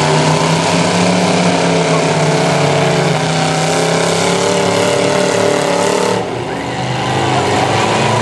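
Demolition derby cars' engines running and revving over a loud, steady din. The sound drops briefly about six seconds in, then comes back.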